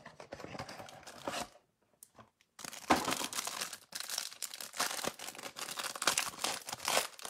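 Trading-card packaging being torn open and crinkled by hand: irregular tearing and crinkling, pausing briefly about two seconds in, then steady crinkling.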